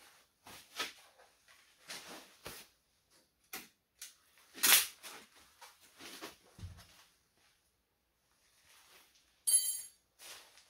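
Irregular knocks, scrapes and clinks of a truck wheel being hung back on its hub and the lug nuts being put on by hand. The loudest knock comes about halfway through, and a short metallic ring follows near the end.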